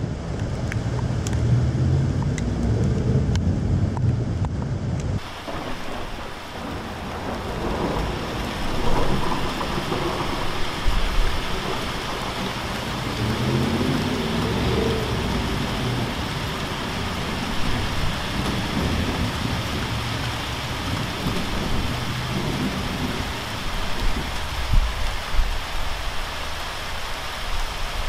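Wind buffets the microphone for the first five seconds. Then comes steady rain falling on paving, gravel and parked cars, with low rumbles of thunder a couple of times.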